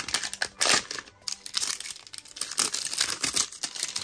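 Plastic packaging on a toy surprise capsule ball crinkling and tearing as it is handled and peeled open by hand, in quick, irregular crackles.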